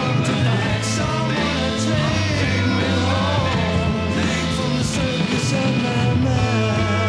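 1969 psychedelic rock band playing at full volume: drums with regular cymbal hits over bass and guitars, with a wavering melodic line in the middle.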